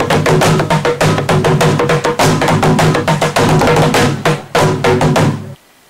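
Traditional Rwandan drums with cowhide heads, beaten with sticks in a fast, dense rhythm that stops abruptly near the end.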